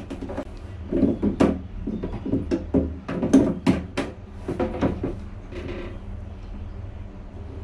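Plastic flush-pipe fittings under a toilet cistern being worked by hand and with a tool: a run of irregular clicks, knocks and plastic rattles, thickest in the middle, then a few quieter handling sounds near the end.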